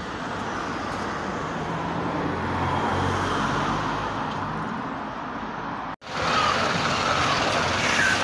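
Road traffic: a passing vehicle's engine hum swells and fades over road noise. After a sudden break about six seconds in, louder engine and road noise comes from a livestock truck close by.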